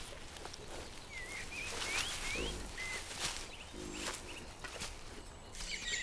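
Wild boar rustling through the dry leaves and branches of a nest, with small birds chirping a few quick rising notes a second or two in.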